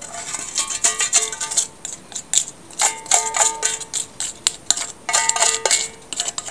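A spoon scraping and clinking against a bowl in bursts of quick, ringing clicks, as the last of the paprika-oil sauce is worked out over the chicken.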